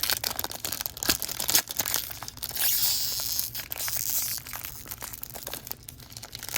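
A baseball card pack's wrapper being crinkled and torn open, with many sharp crackles and a longer tearing rip about midway.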